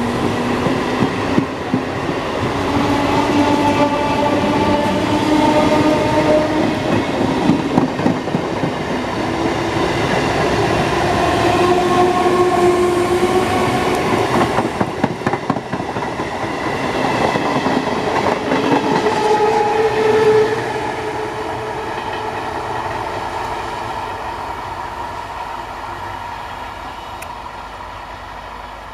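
Electric multiple unit (EMU) train rolling slowly into a station, wheels rattling over the rails with tones that drift slowly up and down in pitch. It is loudest for the first twenty seconds, then fades steadily as it moves on.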